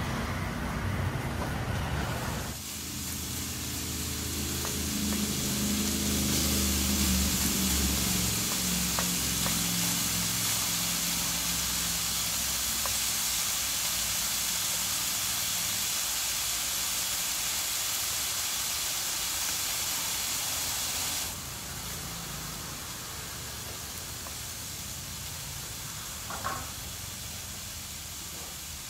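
Slices of pork sizzling on the hot dome of a Thai moo kratha grill pan as they are laid on with tongs. It is a steady hiss that drops in level about two-thirds of the way through, with one brief sharp sound near the end.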